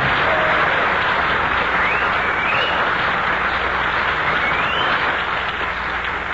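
Studio audience applauding, with a few short rising whistles heard through the clapping; the applause eases off slightly toward the end.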